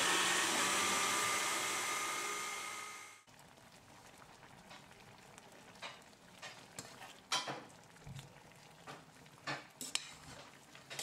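Countertop blender running loud with a motor whine, blending a bread batter, cutting off suddenly about three seconds in. Then a metal spoon stirring sausage-and-tomato sauce in a stainless steel pot: scattered scrapes and taps against the pot.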